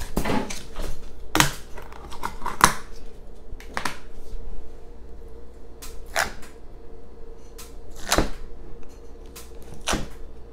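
Plastic slime tub being opened and fingers pressing into clear slime: sharp clicks and pops of plastic and slime at irregular moments a second or two apart.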